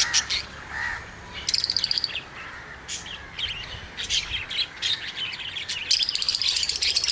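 Small caged parrots, lovebirds and budgerigars, chirping in rapid high trills. A long run of chirps comes about a second and a half in and another near the end, with scattered chirps between.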